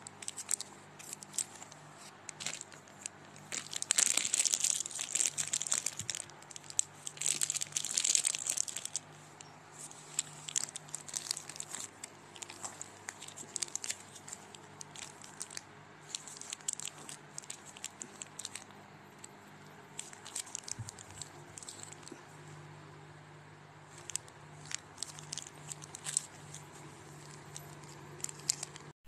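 Plastic wrappers of Kleenex pocket tissue packs crinkling as they are handled, densest between about four and nine seconds in, then in scattered crackles.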